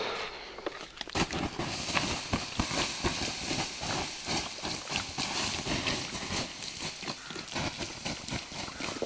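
Footsteps crunching and rustling through dry grass and brush, beginning about a second in as an uneven run of steps.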